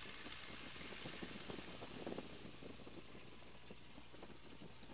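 Boeing N2S-3 Stearman's seven-cylinder Continental radial engine running at low taxi power, a steady drone with hiss over it.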